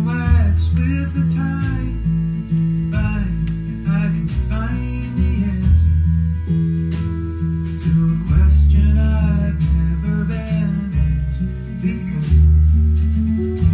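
Instrumental passage of a folk-blues record played from vinyl: fingerpicked acoustic guitar with notes that bend in pitch, over deep held bass notes, with no singing.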